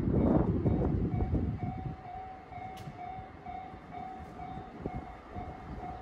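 Railway level-crossing warning bell ringing, a single pitched tone repeating rapidly and evenly, with low rumble and wind on the microphone loudest in the first second or two.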